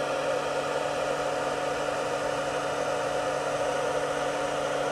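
Steady electrical whir and hum from a 500 W pure sine wave power inverter running under a light load, with a constant thin whine over it.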